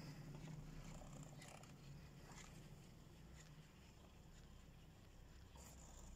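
Near silence, with the faint low hum of a fixed-grip double chairlift running and a few faint ticks. The hum drops away a little over halfway through.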